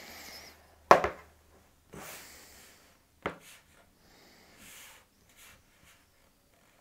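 Handling noises: a sharp knock about a second in and a lighter one a couple of seconds later, with soft rubbing sounds between.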